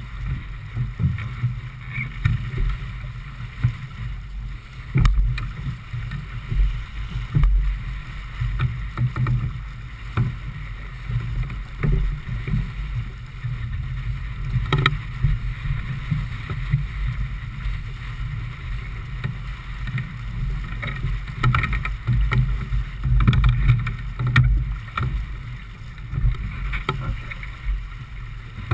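Water rushing and splashing past the hull of a J/24 keelboat sailing heeled over, with a gusting low rumble of wind on the camera's microphone. There are a few sharp knocks, one about five seconds in and one near fifteen seconds.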